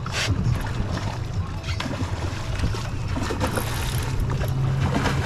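Boat engine running at idle with a steady low hum, and water splashing beside the hull where a hooked bluefin tuna is thrashing at the surface.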